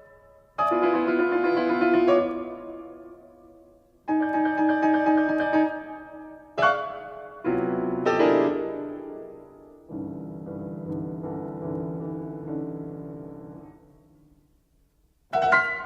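Solo piano playing slow, widely spaced chords from a piece that sets woodlark song, each struck and left to ring and die away. A softer, lower passage rings on through the middle, and after a pause a new loud chord is struck at the very end.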